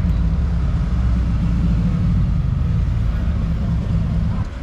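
Car driving: a steady low rumble of road and engine noise, easing slightly near the end.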